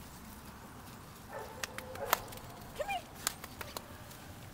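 A dog whining twice: a short held whine, then a brief rising-and-falling whimper, with a few sharp clicks in between.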